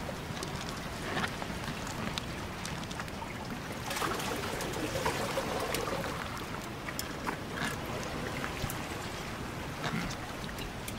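Brash ice in seawater: a steady wash of water with many small clicks and crackles from the floating ice fragments.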